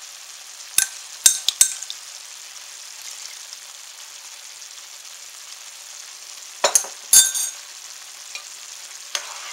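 Onions and mushrooms simmering in broth in a skillet, a steady sizzling hiss. A metal spoon clinks against a glass measuring cup a few times about a second in, and there is a louder clink and clatter about seven seconds in.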